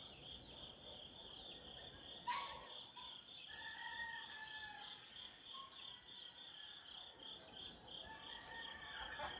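Dawn chorus of insects chirping in a steady pulsing rhythm, about three pulses a second, over a high steady insect drone. Birds call over it: one sharp call about two seconds in, then longer drawn-out calls in the middle and again near the end.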